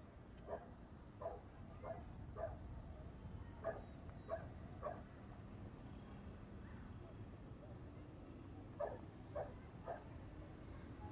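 A dog barking faintly in short single barks, about seven in the first half and three more near the end after a pause of a few seconds. Behind it are outdoor background noise and a high chirp repeating evenly, about once every 0.7 seconds.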